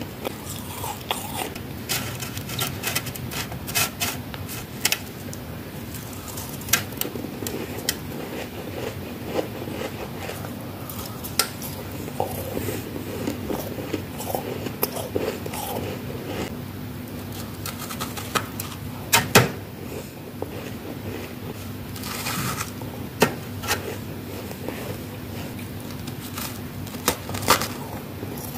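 Crunching bites and chewing of frost-covered ice popsicles: irregular sharp cracks and crackles of ice breaking between the teeth.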